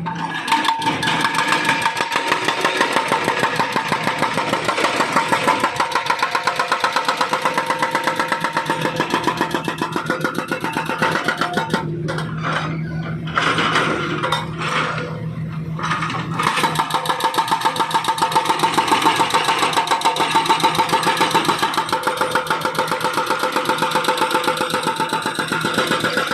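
Hydraulic breaker on a Volvo wheeled excavator hammering into thick asphalt in rapid, continuous blows. The hammering breaks off in short stops about halfway through, leaving the excavator's engine running, then resumes.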